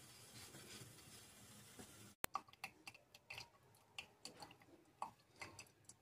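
Near silence: faint room hiss, then after a sudden cut about two seconds in, scattered faint clicks and ticks.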